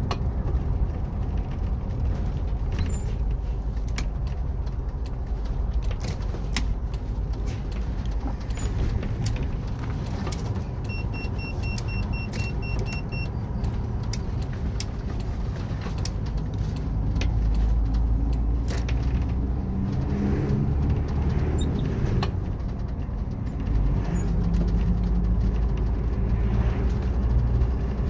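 Converted bus motorhome on the move, heard from inside the cab: a steady low engine and road rumble with frequent small rattles and clicks. Around the middle comes a quick run of about a dozen high beeps. In the later part the engine gets louder as the bus picks up speed.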